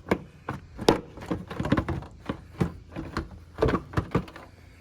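Hard plastic knocks and clunks as the stock lower air box is worked loose and lifted out of the engine bay, about ten irregular knocks.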